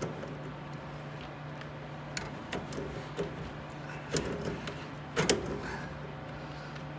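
Pliers clamped on a Maytag dryer's drive-motor pulley clicking and knocking against the pulley and motor shaft as they are worked: five short, sharp metal clicks, the loudest about five seconds in, over a steady low hum.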